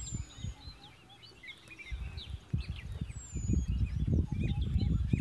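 Several birds chirping and calling, with a thin high whistle falling in pitch at the start and again about three seconds in. Wind rumbles on the microphone, easing about a second in and gusting up again from about three and a half seconds.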